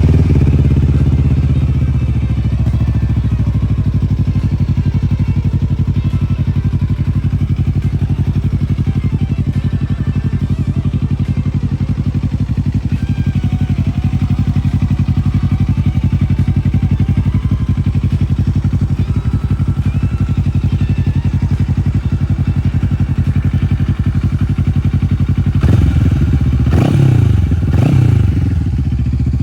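Bristol Bobber 650 motorcycle engine idling steadily, then revved three times near the end, each rev rising and falling.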